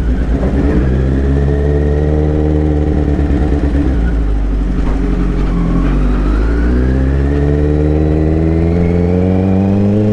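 Kawasaki Z900's inline-four engine through an aftermarket Akrapovič exhaust, heard from the saddle while riding off at low speed. The revs climb, drop back about four seconds in, then climb again through the second half.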